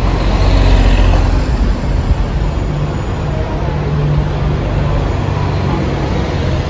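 Double-decker buses driving past close by: a deep engine rumble, loudest in the first second or so, easing into a steady engine hum over the general street traffic.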